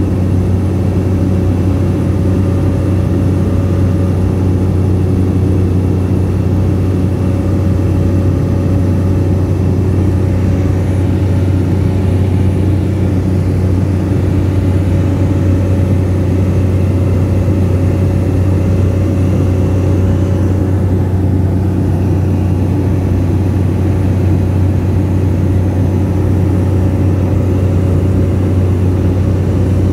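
Cabin noise of a small high-wing propeller plane in cruise: the engine and propeller make a loud, steady drone with a strong low hum.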